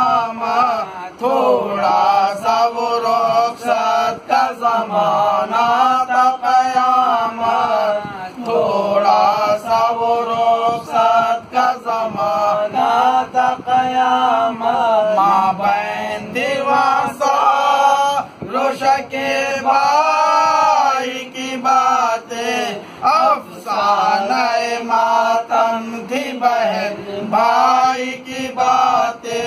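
Several men chanting an Urdu marsiya, a mourning elegy for Husain, together and unaccompanied; the melodic line rises and falls in long sung phrases.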